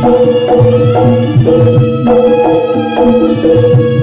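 Jaranan gamelan music led by the kendang, a large Javanese two-headed hand drum, beating a fast rhythm of sharp slaps and deep booming strokes over sustained ringing tones from the ensemble.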